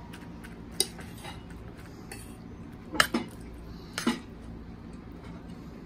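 A metal spoon clinking and scraping against a plate of curry fish and rice: a few short clinks, the loudest about three seconds in and another about a second later.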